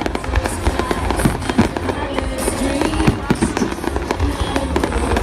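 Fireworks going off: many sharp bangs and crackles in quick succession, over music.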